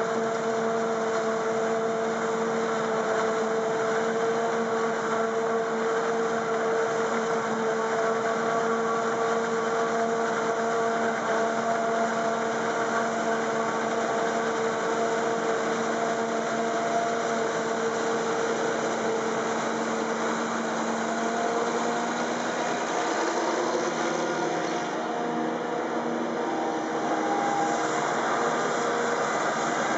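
Claas Jaguar self-propelled forage harvester chopping maize, with a tractor running alongside: a loud, steady mechanical whine over engine noise. The tone shifts in the last few seconds.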